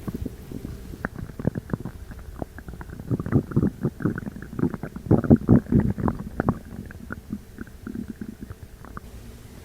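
Stomach and bowel gurgling: a rapid string of short squelches and bubbling gurgles, loudest and densest in the middle, thinning out near the end.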